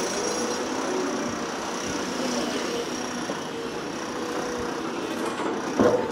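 Steady engine and traffic noise from construction machinery, with a couple of sharp knocks near the end.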